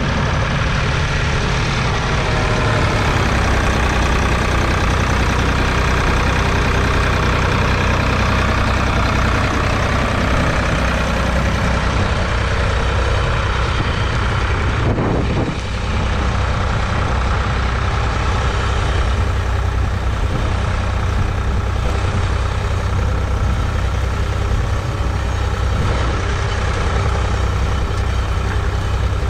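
Ford 3000's 2.9-litre three-cylinder diesel tractor engine running steadily, with a brief dip in the sound about halfway through.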